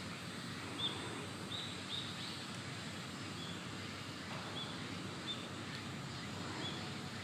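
A small bird giving short, high chirps, about eight scattered over several seconds, over steady background noise.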